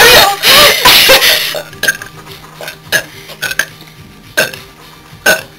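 A girl's long, loud burp, wavering in pitch, that ends about a second and a half in, followed by a few short, faint clicks.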